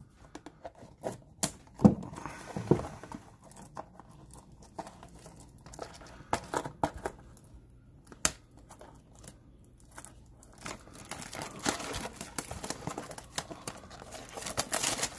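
Plastic shrink wrap being torn and peeled off a cardboard trading-card blaster box: irregular crinkling with sharp crackles, getting busier near the end.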